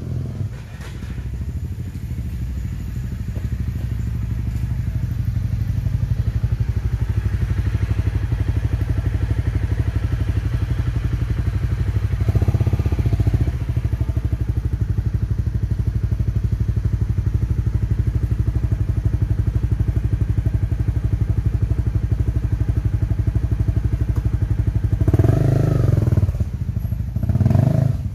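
Honda CRF250 Rally's single-cylinder engine running steadily close by, with a short rise in revs about halfway through and two more near the end as the bike pulls away.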